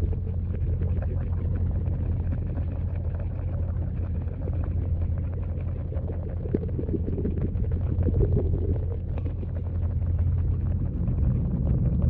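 Steady low rumble of a pond waterfall's falling water, heard underwater through a GoPro's waterproof housing, with many faint crackling ticks over it.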